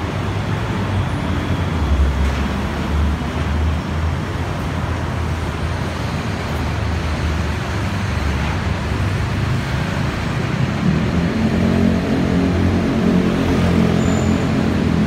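Busy road traffic: a steady rumble of cars and buses passing. About eleven seconds in, the hum of a large vehicle's engine grows louder.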